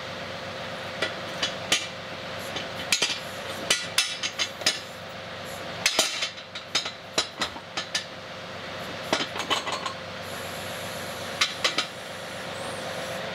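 A tractor's diesel engine running steadily while the backhoe's steel parts knock and clank sharply against each other in irregular clusters as the arm is worked toward a bucket to line up its mounting pin.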